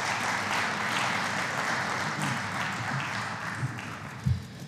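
Audience applause, a steady patter of many hands clapping that thins out toward the end, with a low thump near the end.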